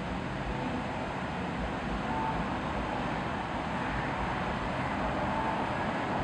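Steady city street traffic noise: a low rumble of passing vehicles under an even hiss, with a few faint short tones now and then.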